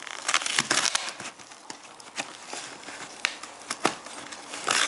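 Cardboard box being torn open by a Jack Russell terrier's teeth and paw: ripping and scratching of cardboard with scattered sharp clicks, loudest in the first second and again near the end.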